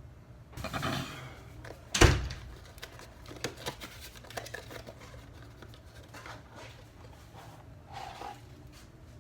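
Handling noises from swapping out the oil filter: a rustle, then a sharp knock about two seconds in, followed by scattered light clicks and taps.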